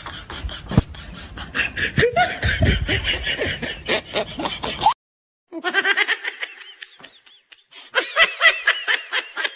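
People laughing hard in rapid repeated bursts, with a sharp thump about a second in. The laughter breaks off for half a second or so around the middle, then starts again.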